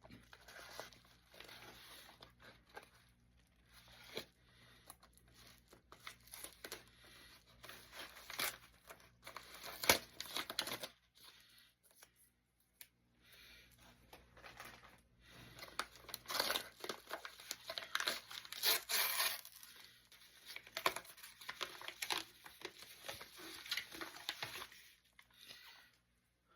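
Packaging being torn open and crumpled by hand: irregular tearing and crinkling, with louder rips about ten seconds in and again through a stretch a few seconds later.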